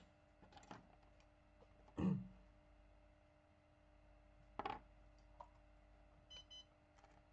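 A few scattered light knocks and clicks of tools being handled on a repair bench, the loudest about two seconds in, over a faint steady hum. Two short faint beeps sound near the end.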